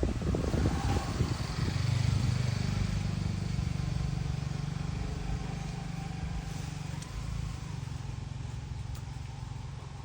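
A motor vehicle engine running steadily with a low hum that slowly fades, after some irregular knocks and rustling in the first second or so.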